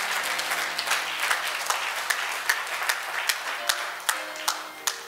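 Church congregation applauding in praise, a dense patter of hand claps with single sharp claps standing out, dying away near the end. A faint steady low tone runs beneath it.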